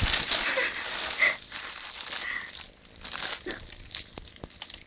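Thin plastic bag crinkling and rustling as a cat plays with it. The crinkling is loudest in the first second or so, then goes on more softly in scattered crackles.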